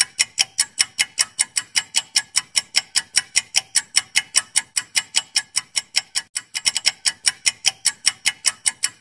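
Clock-ticking sound effect timing a quiz countdown: rapid, even ticks at about five a second, with a brief break and a quick cluster of ticks a little past six seconds in.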